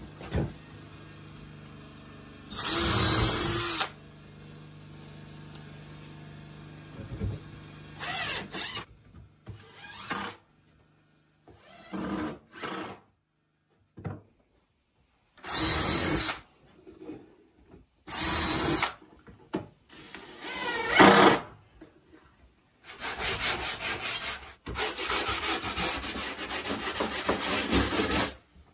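DeWalt 18-volt cordless drill running in a series of short bursts of about a second each, then a longer run of about five seconds near the end with a fast, even pulsing.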